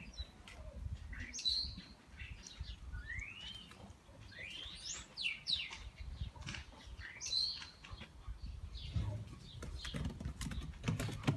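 Small birds chirping, short rising calls repeated through the first part, over a low rumble. Near the end comes a run of light clicks and taps.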